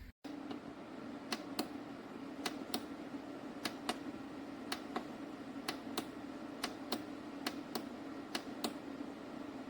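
Small mini dehumidifier running with a steady low hum, with sharp, irregular clicks about twice a second on top.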